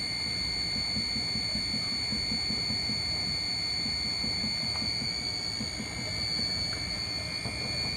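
Electric honey extractor running steadily: a low, pulsing rumble with a constant high whine over it.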